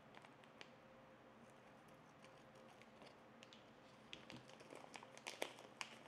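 Near silence, then from about four seconds in a small plastic parts bag crinkling, with light clicks as it is handled and opened.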